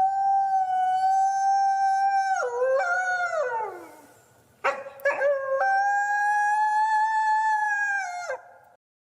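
Wolf howling: two long howls, each held on a steady pitch, then breaking and sliding down at the end. The second begins about halfway through, after a short pause, with a couple of brief broken notes before it settles.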